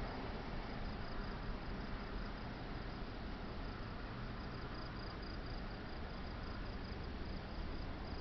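Crickets chirping steadily, a faint high pulsing trill over a quiet background hiss.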